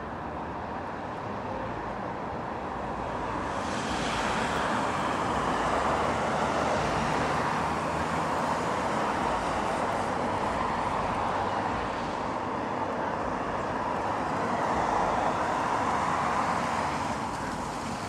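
Road traffic heard from a distance: a steady hiss of tyres and engines from passing cars, swelling and easing off a few times.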